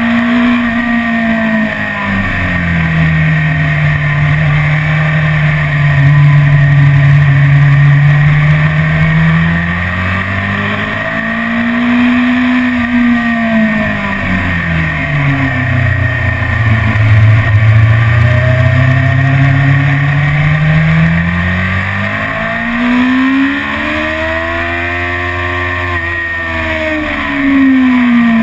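BMW S1000RR's inline-four engine under way on track, heard from on the bike, its pitch sweeping up and down as the rider accelerates and eases off through the corners. It climbs highest a few seconds before the end, then drops, over a constant rush of wind.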